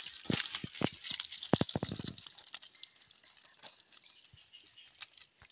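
Live fish thrashing inside a mesh net trap as it is handled: a quick run of sharp slaps and knocks with rustling of the net in the first two seconds, then only faint rustling and a few clicks.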